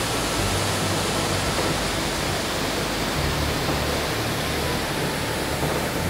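Giessbach waterfall's water rushing, a loud, steady, even noise.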